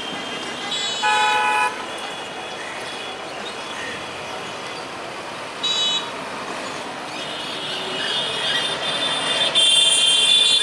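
Diesel-hauled passenger train running, with two short horn toots, one about a second in and a shorter one about six seconds in. A high-pitched squeal builds over the last few seconds and becomes the loudest sound.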